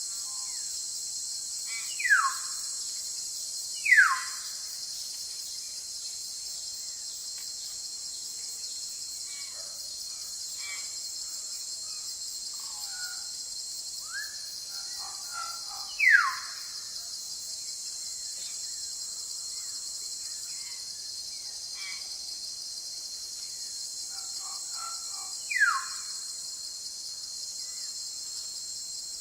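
Forest ambience: a steady high-pitched insect chorus of crickets or cicadas, with a bird giving a loud, short, falling whistle four times, twice close together early on, then once in the middle and once near the end, and fainter bird chirps in between.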